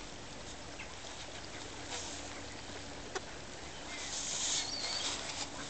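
Faint outdoor ambience beside a resting flock of mallards: low steady background noise, one sharp click about three seconds in, and a brief high rustle with a short high chirp a little past four seconds.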